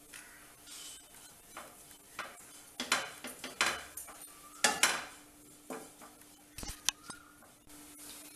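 Wooden spatula scraping and knocking against a nonstick kadai, stirring dry bread crumbs and desiccated coconut as they roast in ghee. The strokes come irregularly and are loudest around the middle.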